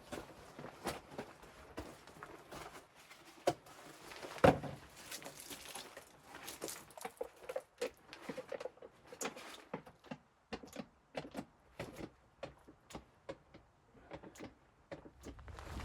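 Irregular knocks and clicks, with one loud thump about four and a half seconds in.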